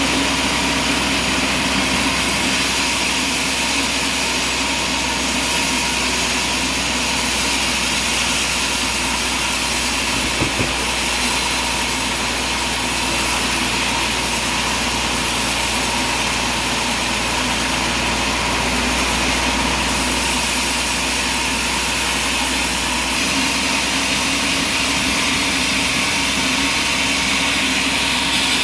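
Sawmill machinery running steadily, a constant mechanical drone with a thin high whine, and one short knock about ten seconds in.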